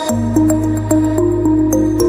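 Background music: a soft new-age tune of short melodic notes, with a steady low bass note coming in at the start.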